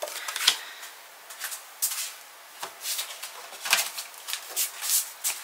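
Paper and cardstock being handled on a craft table: a scatter of short, light rustles and taps, one every second or so.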